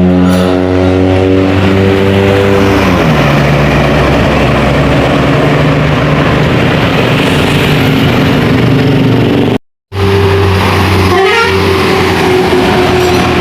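Tour bus's multi-tone telolet horn playing its note sequence over the engine, stopping about three seconds in. Engine and tyre noise of passing traffic follow, and after a brief cut a horn holds a steady tone to the end.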